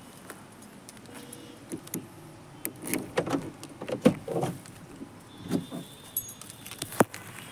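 Clicks and rattles of a Maruti Suzuki Ritz's front door being unlatched and swung open, mixed with footsteps on dry grass, and one sharp click near the end, the loudest sound.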